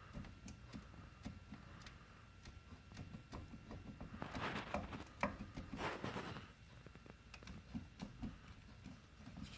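Light, irregular knocks and clicks from the worn wheel bearings and suspension bushings of a 2011 Polaris Sportsman 500 ATV as the loose parts are worked, with two short scraping bursts about four and a half and six seconds in.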